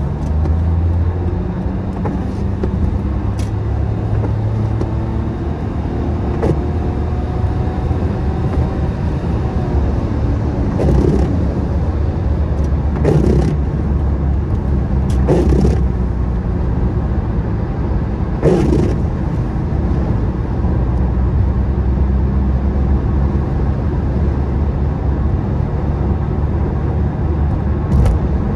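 Steady engine and road noise inside a car cruising at speed on a wet road, with windscreen wipers sweeping across the glass: a few short swishes a couple of seconds apart in the middle.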